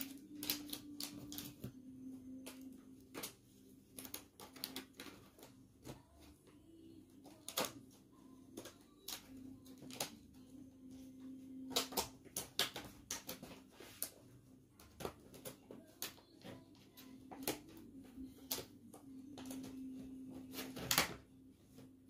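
Scattered irregular clicks and light knocks, as of small objects being handled, over a steady low hum; the loudest knock comes near the end.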